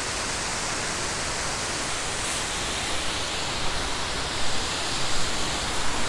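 Steady rushing of white water: the Vésubie river running through its rocky gorge, with a waterfall spilling in beside the bridge. A few soft bumps come in the second half.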